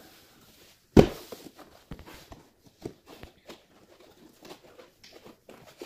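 A cardboard box being opened by hand: a sharp snap about a second in, then a run of light taps, scrapes and rustles as the flaps and inner cardboard inserts are handled.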